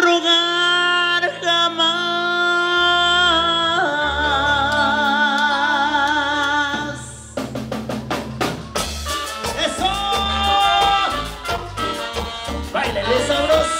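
Latin dance band music: long held notes with vibrato open it, then drums and percussion come in about seven seconds in and the band plays on.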